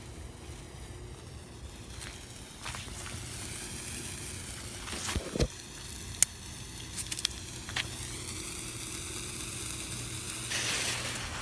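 A small lit firework burning with a steady hissing sizzle that sets in a few seconds in and swells near the end, broken by a few sharp pops and crackles around the middle.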